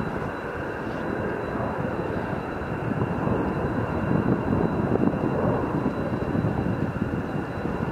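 Jet aircraft engines running out of sight at an airport: a steady deep engine noise with a thin high whine over it, growing a little louder in the second half.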